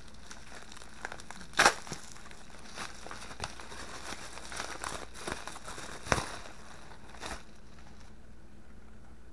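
Bubble wrap crinkling and tearing as it is pulled apart by hand, with a few sharper snaps, the loudest about one and a half seconds in. It stops about seven and a half seconds in.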